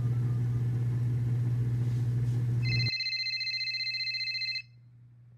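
Steady low hum with light hiss that cuts off about three seconds in. A telephone ring begins about two and a half seconds in and lasts about two seconds: an outgoing call ringing through to Santa's workshop in a prank-call app.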